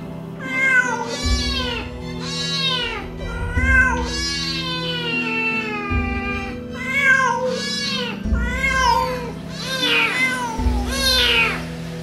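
A cat meowing over and over in loud, distressed cries, about a dozen calls with one long drawn-out falling cry in the middle; a mother cat crying for her kitten trapped down a drain. Soft background music runs underneath.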